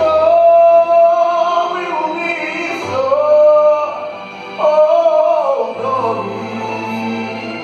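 A young man singing solo into a handheld microphone, sustaining long held notes, over a low accompaniment that changes chord every couple of seconds.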